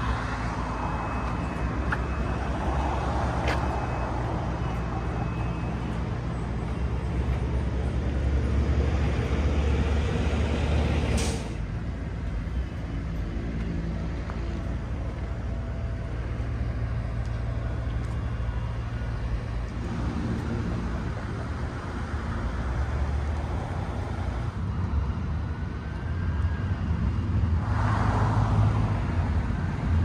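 Road traffic: a steady low rumble of vehicle engines, with a short sharp hiss about a third of the way in and a vehicle swelling past near the end.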